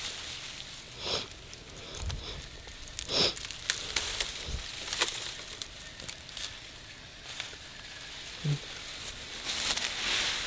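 Grass and leafy vegetation rustling and crackling as it is handled, with scattered sharp snaps and clicks and a couple of louder rustles about a second and three seconds in.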